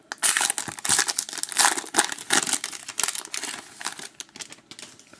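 Trading card pack wrapper being torn open and crinkled in the hands, a run of irregular crackles and rustles that thin out near the end.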